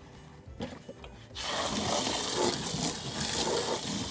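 A spray of water hitting a plastic Cozy Coupe ride-on toy car, starting suddenly about a second in and going on as a loud, steady hiss and splatter. Before it, faint rubbing of a scrub brush on the plastic.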